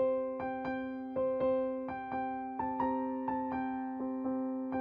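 Background music: an electric piano playing a slow melody of single struck notes, about two a second, over a sustained chord.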